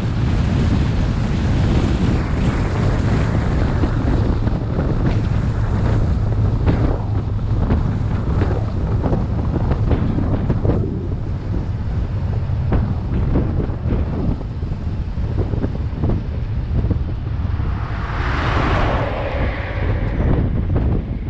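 Heavy wind buffeting the microphone at road speed over a low, steady drone of the towing pickup and its tyres on the road. Near the end the noise brightens briefly as the truck slows toward the roadside.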